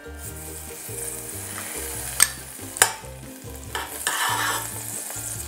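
Unsalted butter being scraped with a metal spoon out of a small glass bowl into a warm stainless-steel saucepan, with two sharp clinks of the spoon a little over half a second apart, about two seconds in. A soft sizzle and hiss as the butter starts to melt in the pan.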